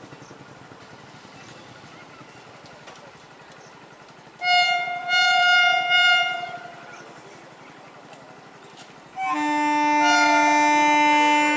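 Indian Railways train horns. A high horn blast of about two seconds swells and dips in loudness about four and a half seconds in. A longer, louder horn sounding a lower chord starts about nine seconds in and is still going at the end.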